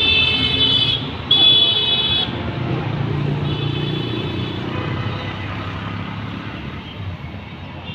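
A vehicle horn sounds twice in the first couple of seconds, each note about a second long, then once more faintly, over the low rumble of road traffic.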